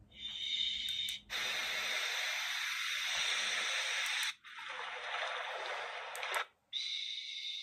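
White noise played through the small speaker of a plush baby sleep-aid toy: a steady hiss that breaks off briefly about a second in, again a little after four seconds and near the end, as the sounds are switched.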